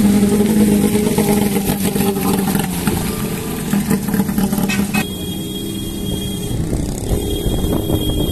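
Engine of a small pickup truck running close by as it passes, a steady hum; it cuts off suddenly about five seconds in.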